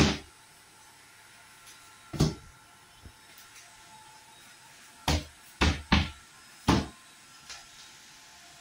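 Wood-grain drawer of a kitchen organizer rack knocking against its frame as it is pushed in and pulled out: a sharp knock at the start, another about two seconds in, then four knocks in quick succession between about five and seven seconds in.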